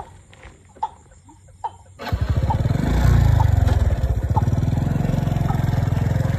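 Motorcycle engine starting about two seconds in, swelling as it pulls away and then running steadily close by.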